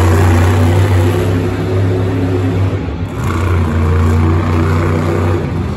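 Earthshaker monster truck's supercharged V8 engine held at high revs while the truck balances on its rear wheels in a wheelie, dropping briefly about halfway through, then picking back up and easing off near the end.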